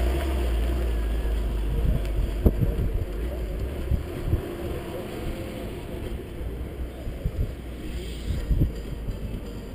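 Wind buffeting a car-mounted action-camera microphone in irregular low thumps, over a low steady rumble that fades over the first few seconds.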